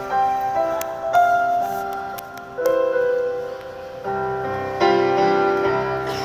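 Keyboard playing a slow instrumental passage of held chords in a piano-like tone, the chord changing every second or so. A few faint clicks sound in the first two seconds.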